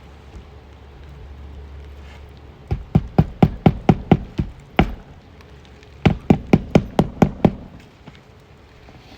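A hammer driving roofing nails by hand through asphalt 3-tab shingles: two quick runs of sharp blows, about four a second, the first of about nine strikes and the second, a second or so later, of about seven.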